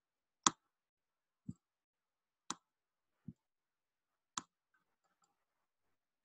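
Computer mouse clicking five times, about a second apart, sharp clicks alternating with duller, lower knocks; the first click is the loudest.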